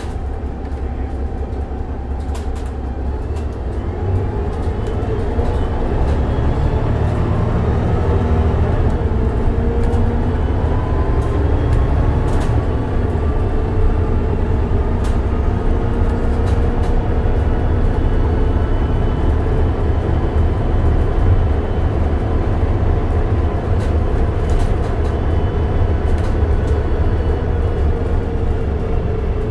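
Mercedes-Benz O405NH midi bus with a Voith automatic transmission pulling away and cruising. The engine's rumble and the transmission whine rise in pitch and loudness over the first several seconds, then hold nearly steady, with occasional light rattles.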